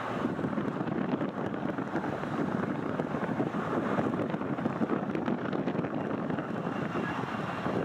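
Steady jet roar from a KLM Fokker twin-jet's two rear-mounted Rolls-Royce Tay turbofans as it flies overhead, mixed with wind on the microphone.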